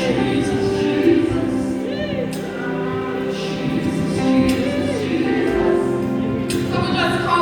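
Gospel choir singing with instrumental backing, voices holding long notes over the band.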